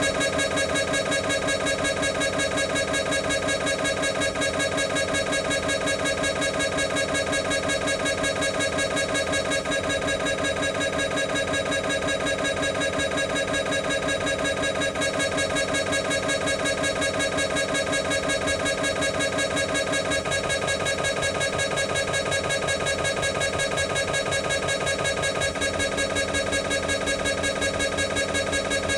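Siemens MAGNETOM Spectra 3-tesla MRI scanner's gradient coils buzzing through a scan sequence: a loud, steady pitched drone pulsing many times a second, which shifts slightly in tone twice in the later part.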